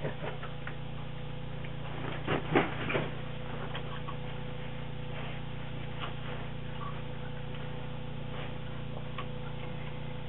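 Steady machine hum, with a few light knocks about two to three seconds in.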